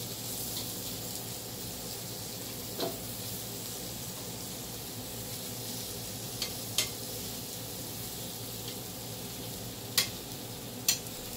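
Barbecue chicken thighs sizzling on a Hamilton Beach electric grill, a steady hiss, with about five sharp clicks of a utensil against the grill as the pieces are flipped.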